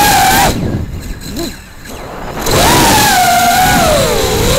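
Quadcopter's four 2205 brushless motors on 5045 tri-blade props whining, then cut to near idle about half a second in as the throttle is chopped, with one brief blip. After about two seconds they spin back up, the whine falling and rising in pitch with the throttle.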